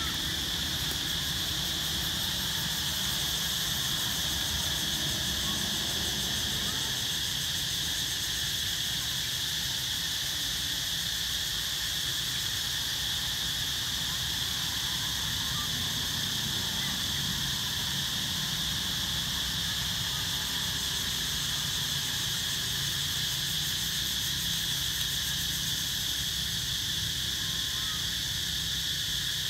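Steady, high-pitched chorus of insects that drones without a break, over a low rumble.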